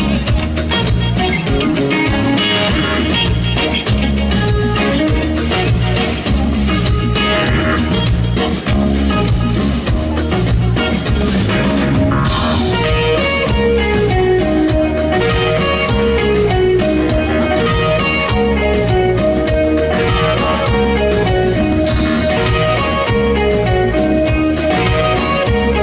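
Rock band playing live, guitars over a steady drum beat, in the instrumental opening of the song before the singing starts.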